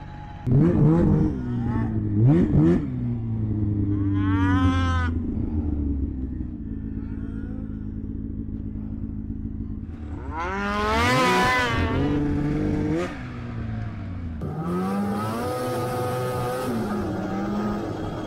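Two-stroke snowmobile engines idling and being revved in short rising and falling blips, with one bigger rev about ten seconds in. Near the end a sled pulls away and runs at a steady, higher pitch.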